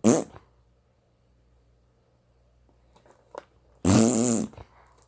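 Two fart noises: a short, sharp one at the start and a longer, louder buzzy one about four seconds in, its pitch rising and then falling.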